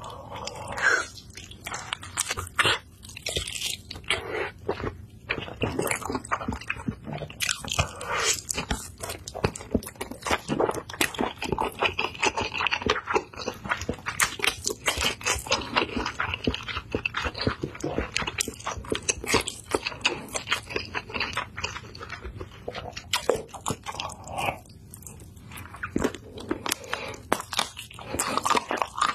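Close-up eating of a sauce-glazed chicken drumstick: bites and chewing with many sharp crunches in quick succession.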